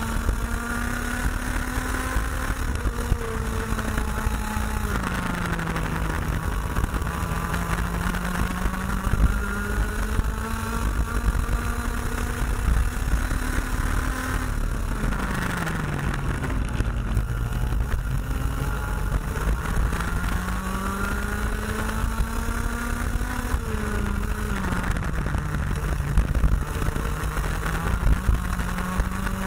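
IAME X30 125cc two-stroke kart engine at racing speed, its revs climbing slowly along the straights and falling sharply three times as the kart slows for corners, over a constant low rumble.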